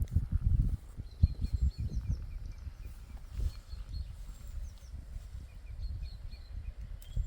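Small songbirds chirping in short, repeated high notes, over an irregular low rumble that is loudest in the first second.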